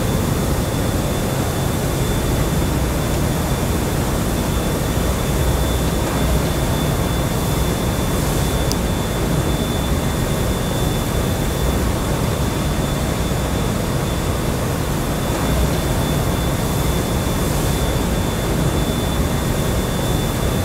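Steady, dense rumbling noise with a thin, high steady whine running through it, like a distant engine drone.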